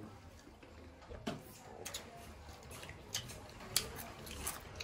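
Quiet, scattered small clicks and smacks of people eating chicken by hand: chewing and fingers picking meat off the bones over plates.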